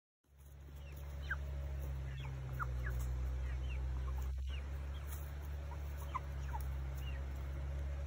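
A flock of white meat chickens peeping and clucking softly, scattered short high chirps over a steady low rumble.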